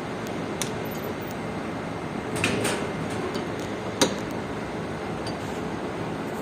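A few sharp metal clinks and knocks of tools on metal fittings, a cluster about two and a half seconds in and the loudest single knock about four seconds in, over a steady background machine hum.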